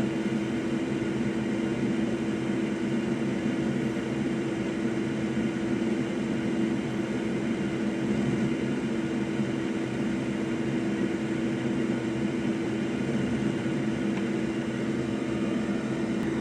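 Hot-air rework tool blowing steadily, with a constant low hum, while heating solder to reflow a new HDMI port and capacitor onto a PS5 motherboard.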